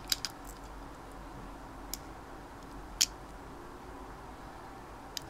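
A few small, sharp plastic clicks as a USB keyboard receiver is pushed against a Samsung micro-USB adapter, the plug not yet going in. The loudest click comes about three seconds in, over a faint steady room hiss.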